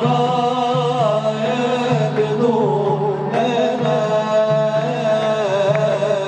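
Male voices singing an Arabic devotional nasheed in praise of the Prophet Muhammad, drawing out long held notes that waver and bend in the Middle Eastern style, over a steady low accompaniment.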